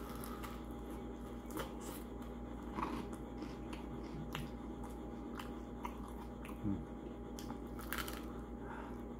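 A crispy thin-crust pepperoni pizza slice being bitten and chewed: scattered crisp crunches, the sharpest near the end.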